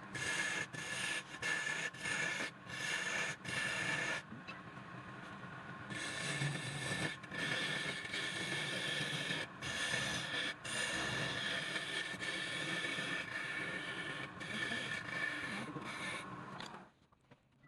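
A power tool working wood, giving a steady scraping hiss with a high whine, broken by several short gaps, and stopping suddenly near the end.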